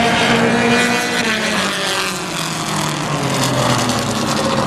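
Dirt-track race car engines running at speed around the oval, a loud, steady engine sound with several engines' tones overlapping.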